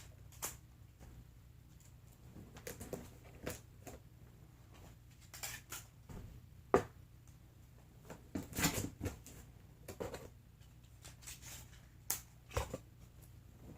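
Cardboard and tape being handled: scattered rustles, taps and clicks, with one sharper knock about seven seconds in.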